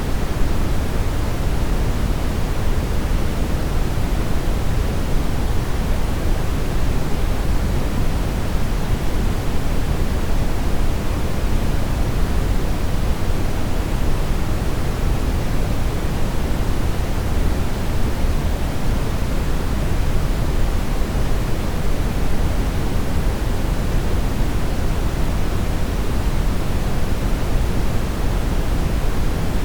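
Television static: a steady, unchanging hiss of noise from a TV with no signal.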